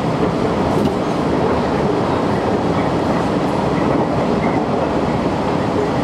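Steady running noise of a KiHa 110 series diesel railcar at speed, heard from inside the passenger cabin.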